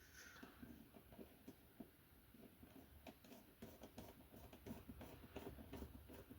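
Faint, scattered light clicks and taps of small plastic and metal disc-drive parts being handled and fitted, close to near silence.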